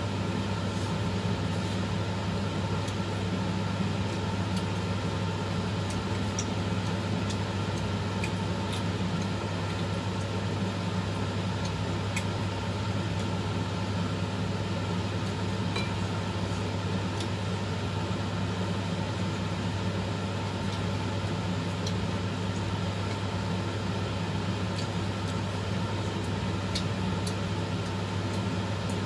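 A steady, even hum like a fan or motor running, with scattered faint light ticks over it.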